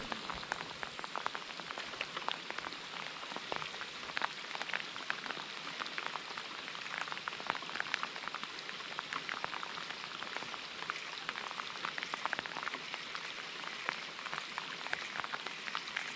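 Rain falling steadily: an even hiss with many small, irregular drop ticks.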